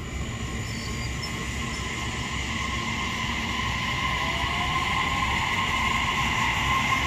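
JR East E657 series electric train pulling away slowly, its inverter-driven traction motors giving steady high whining tones over a low rumble of the wheels, growing gradually louder as it gathers speed. A fainter rising note comes in about halfway through.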